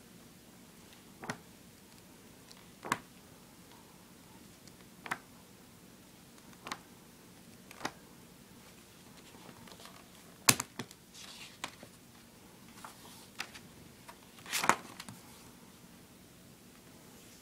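Thick glossy pages of a hardcover comic omnibus flipped by hand: a string of separate flicks and slaps a second or two apart, with two louder ones in the second half.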